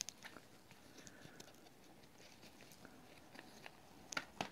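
Faint handling noise from a small cardboard box and its packaging insert being opened: scattered light clicks and taps, with a few sharper clicks about four seconds in as the transmitter is lifted out.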